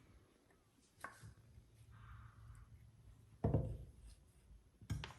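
A few soft knocks and a brief rubbing sound of a hand cast and casting material being handled, the loudest knock about three and a half seconds in.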